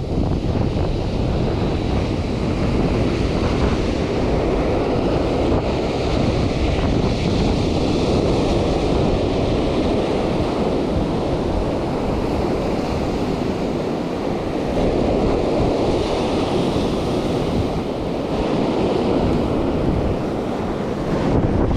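Ocean surf breaking and washing up a sandy beach, with wind buffeting the microphone.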